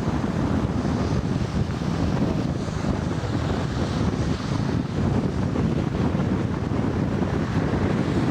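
Strong wind blowing across the microphone, a loud, steady, deep rushing noise.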